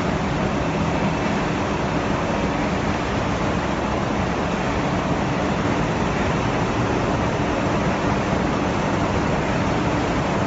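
Continuous conveyor-belt fryer line running: a steady, even hiss with a faint low hum underneath.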